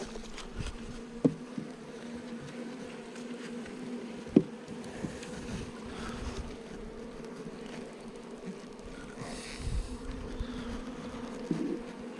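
Honeybees buzzing around an open hive as a steady hum. A few sharp knocks come from wooden hive parts being handled, the loudest about four seconds in.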